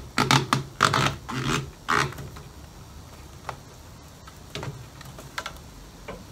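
Rubber coolant hose being worked onto the spigot of a new plastic coolant expansion bottle: rubbing and creaking for about the first two seconds, then a few light plastic clicks and taps as the bottle is handled.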